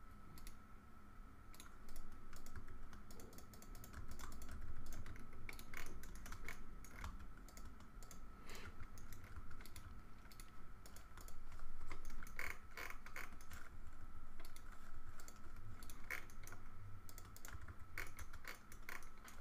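Computer keyboard keys and mouse buttons clicking at irregular intervals, in short runs of keystrokes with pauses between. A faint steady high whine runs underneath.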